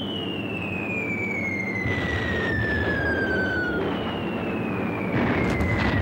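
Falling-bomb whistles: a high whistle drops steadily in pitch and breaks off a little under four seconds in, as a second one begins and falls again. Underneath is a low rumble, with a blast about five seconds in.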